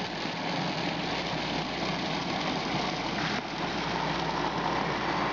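Wine pump running steadily during a pump-over, with fermenting red juice gushing and splashing out of the outlet pipe.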